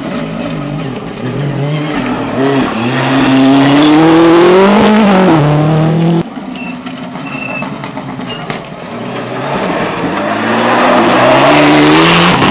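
Rally cars at full throttle on a gravel stage: one engine climbs in pitch through the revs with a gear change before the sound breaks off suddenly about six seconds in. A second rally car then approaches and passes, its engine rising in pitch and growing loud near the end.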